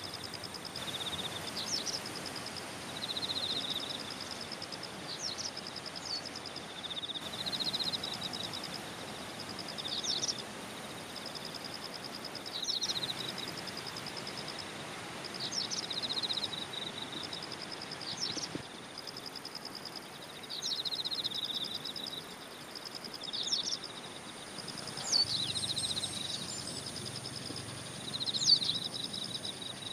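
Rural outdoor ambience: short high trills and sharp chirps from birds and insects, repeating every couple of seconds, over a steady high insect drone and faint background noise.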